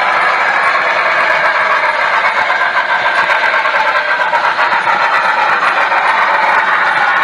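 Broadway Limited Paragon 3 HO scale N&W steam locomotive running, its on-board sound system playing a steady steam-engine sound through the model's small speaker, mixed with the rolling noise of model wheels on track.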